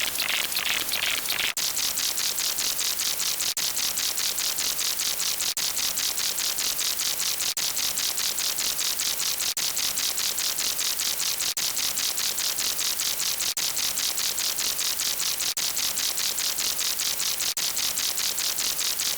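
Harsh static-like hiss, mostly high-pitched, pulsing rapidly at about four to five times a second, with a slight break every two seconds as if the sound is looped.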